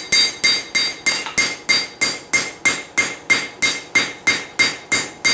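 Hand hammer striking a hot railroad spike on an anvil in a steady rhythm, about three blows a second, each blow leaving a bright ringing tone: drawing out the blade of a small froe.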